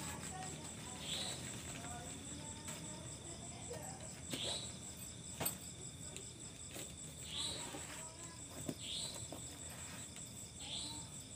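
Night crickets chirping steadily in a high, fast-pulsing trill, with a second short call repeating every second or two. A single sharp click about five and a half seconds in.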